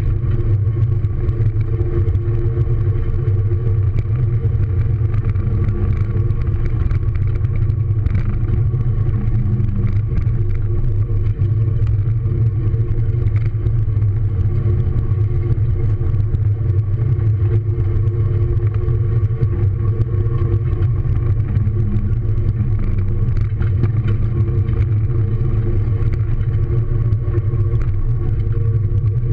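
Car engine and road noise heard from inside the cabin while driving on track: a loud, steady low drone held at an even pitch, with no revving.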